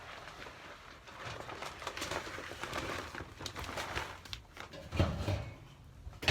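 Layer pellets of chicken feed being scooped and poured into a feed can: a steady rustling hiss full of small clicks from the falling pellets, busiest through the middle and easing near the end.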